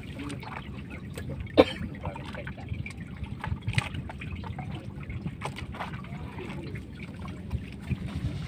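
Water trickling and splattering off a wet gill net as it is hauled by hand over the side of a fishing boat, with scattered small clicks and one sharp knock about one and a half seconds in, over a low steady rumble.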